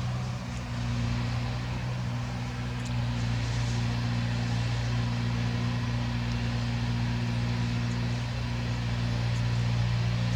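A steady low hum with a few even pitches, unchanging throughout.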